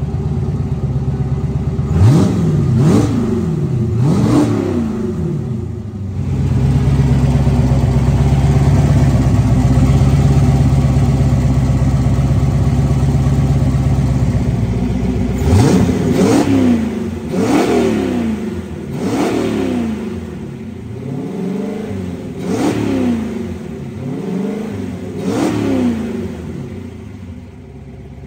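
Turbocharged small-block Ford V8 in a Foxbody Mustang running on its first start-up with a newly built custom turbo kit. Three quick throttle blips about two seconds in, a steady higher speed held for about eight seconds, then a string of sharp revs, each rising and dropping back to idle.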